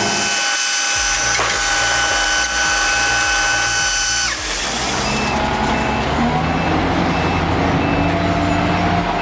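Heavy diesel machinery running with a steady high whine, then a change in the sound about four seconds in, followed by repeated short high beeps like a reversing alarm.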